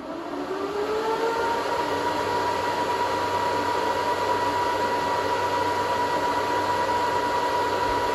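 SuperMicro FatTwin server node's cooling fans spinning up at power-on: a rising whine that levels off about a second in, then a steady, loud whir with a high tone.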